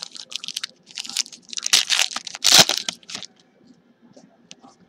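A foil trading-card pack being torn open and crinkled by hand: a run of crackling rustles, loudest about two seconds in, that stops after about three seconds, leaving a few faint ticks.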